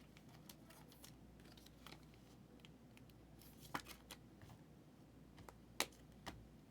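Faint scattered clicks and rustles of trading cards being handled, with two sharper clicks, one just under four seconds in and one near the end.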